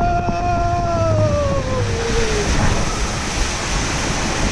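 Water rushing under an inflatable tube sliding down an enclosed water slide, with wind on the microphone. A rider's long held yell sits over the rush, then falls in pitch and dies away about two seconds in.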